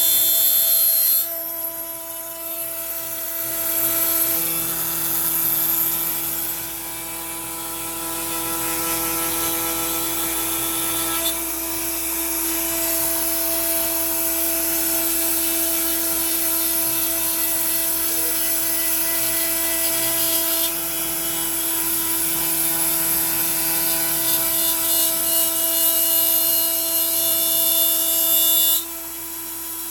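Makita trim router spinning a 1/4-inch two-flute upcut bit at about 18,000 rpm, set to 3.5, as the CNC machine feeds it through pine at 60 inches per minute. It gives a steady high whine with cutting noise, and a lower motor hum comes and goes as the machine moves. The sound is louder at the start and again near the end.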